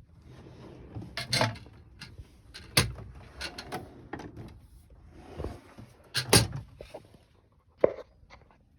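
Steel tool-box drawers being pulled open and pushed shut, with a series of clunks and tool rattles. The loudest clunk comes about six seconds in.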